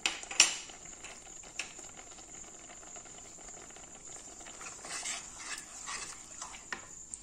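Wooden spoon stirring milky rice payasam as it simmers in a kadai, knocking against the pan a few times; the sharpest knock comes about half a second in. A steady high-pitched whine runs underneath.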